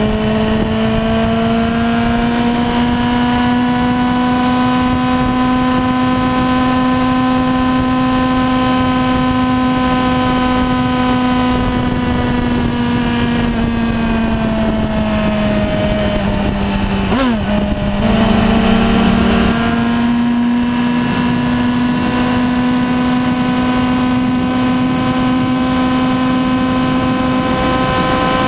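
2008 Yamaha YZF-R1's 1000cc inline-four engine running hard at highway speed, about 150 to 190 km/h. Its pitch rises gently, eases off, wobbles and jumps briefly about 17 seconds in, then holds steady. Wind rushes over the microphone throughout.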